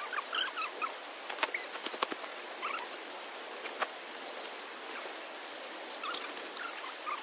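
Outdoor ambience: a steady hiss of running water with short, high chirps scattered through it and a few sharp clicks.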